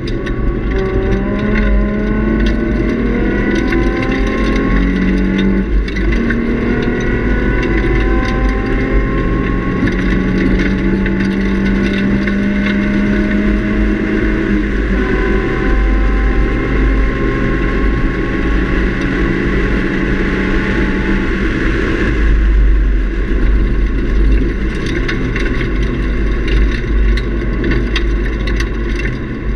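Nissan 350Z's 3.5-litre V6 with a Nismo cat-back exhaust accelerating hard under full throttle, its note climbing in three long pulls with upshifts about six and fifteen seconds in. It is heard from inside the cabin over heavy road and wind rumble. About three quarters of the way through, the engine note drops away into a broad road roar.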